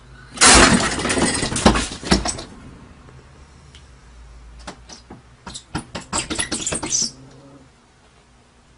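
A sudden loud scuffling burst, about two seconds long, as the house cat leaves its perch at the window. A run of sharp clicks and knocks follows about five to seven seconds in.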